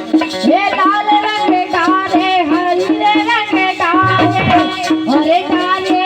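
Bundeli Rai folk music playing: a bending melody over a steady, even percussion beat.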